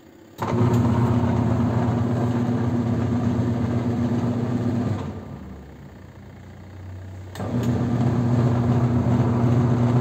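Twin-tub washing machine's wash-tub motor turning the empty tub's pulsator with a steady electric hum. It stops about five seconds in and starts again about two seconds later, the run-and-pause of the wash cycle. The motor running is the sign that the machine works again now that its blown fuse has been replaced.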